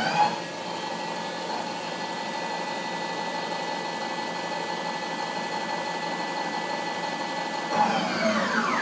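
Hwacheon Hi-Tech 700 lathe spindle and chuck running at speed with a steady whine. Near the end the spindle winds down, and the whine falls in pitch as it slows to a stop.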